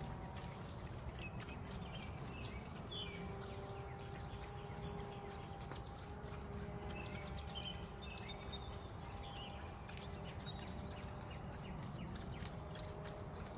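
Birds chirping in short scattered calls over a steady low rumble and a faint steady hum.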